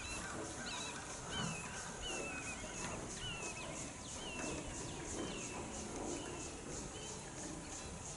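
Horse's hoofbeats on soft sand arena footing, growing fainter as the horse moves away, with a bird chirping repeatedly, a short curving note every second or less.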